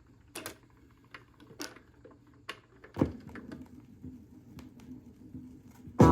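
BSR McDonald 4800 record changer cycling between records: a run of mechanical clicks and knocks, with a louder thump about three seconds in, then faint groove noise and small ticks before music from the next record starts right at the end.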